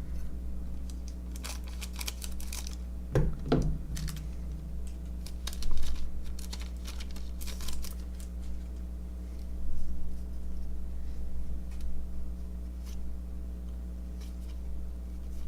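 Baseball cards being handled and flipped through: scattered light clicks and rustles of card stock sliding and snapping, over a steady low hum.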